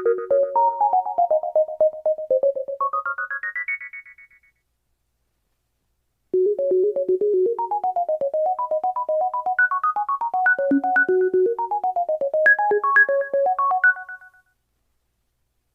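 Pantech Breakout phone ringtones: a quick-note synthesized electric-piano melody ends about four seconds in, and after a short gap a different fast keyboard-like melody plays for about eight seconds before stopping.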